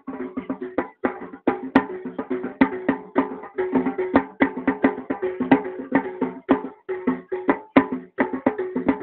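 Fast percussion-led music: many sharp strikes a second over a repeating run of pitched notes.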